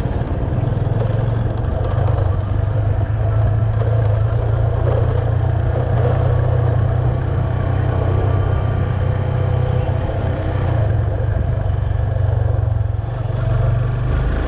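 Yamaha FZ25's single-cylinder engine running steadily as the freshly rebuilt motorcycle is ridden along a road.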